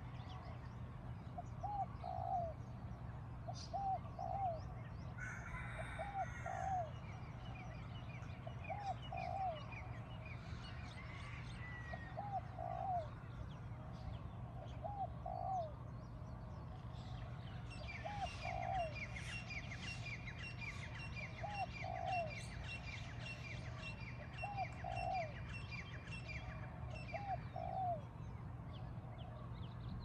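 Morning birdsong: a dove cooing a short two-note phrase about every three seconds, around ten times, with smaller birds chirping higher up. In the second half a fast run of repeated chirps joins in.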